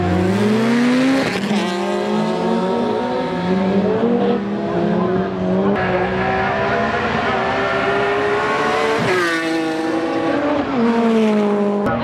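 Rallycross race car engines under hard acceleration, pitch climbing and then dropping back sharply several times as they shift up through the gears.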